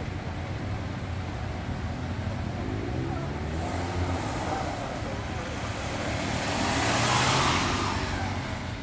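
Alfa Romeo 156 V6 saloon engine idling, then revving up as the car pulls away. It grows loudest as it passes close by about seven seconds in, then fades.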